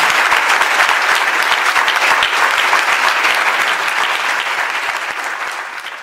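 Audience applauding, a dense patter of many hands clapping that slowly dies away near the end.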